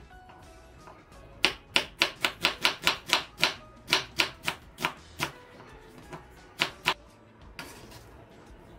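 A chef's knife slicing an onion into thin strips on a wooden cutting board: the blade knocks sharply on the board about four times a second, starting about a second and a half in, then two more knocks after a short pause.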